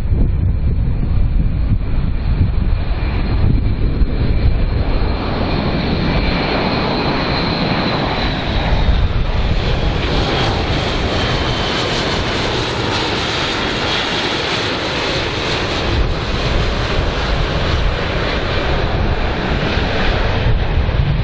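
Airbus A400M Atlas, a four-engine turboprop with eight-bladed propellers, flying low past: a steady propeller and engine rumble with a high whine. The whine glides slightly lower and the sound grows fullest around the middle as the aircraft passes closest.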